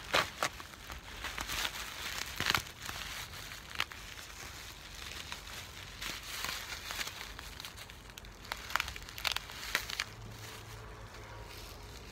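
Clear plastic and brown paper wrapping crinkling and rustling as it is pulled off a potted plant, with sharp crackles at irregular moments.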